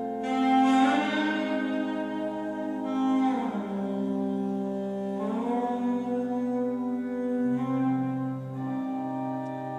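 Slow instrumental music played through DIY loudspeakers built on Isophon P21 and Realistic 40-1374 drivers, fed by a Dynaco SCA-35 tube amplifier and picked up by a phone microphone. Long held notes, with the pitch sliding twice in the middle and a deeper note coming in near the end.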